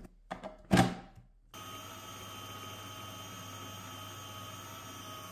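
A knock as the motor top of an electric food processor is set on its glass bowl. Then, about a second and a half in, the motor starts suddenly and runs with a steady hum, mixing a coconut, sugar and egg-white batter.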